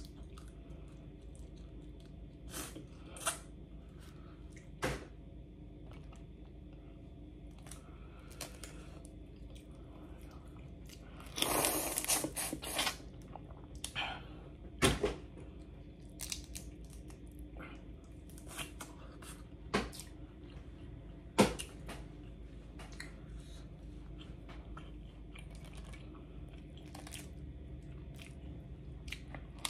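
Boiled crawfish being cracked and peeled by hand, with scattered sharp shell snaps and chewing. A longer stretch of crackling comes about twelve seconds in, and the loudest single snap about twenty-one seconds in.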